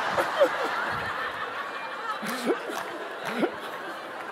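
Audience laughing, loudest at first and dying away over about two seconds, with a few lone laughs after.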